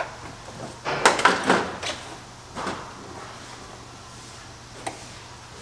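Ferrari 308 GTS dashboard being slid and worked into place in the car: a cluster of knocks and scrapes about a second in, another bump shortly after, and a single sharp click near the end.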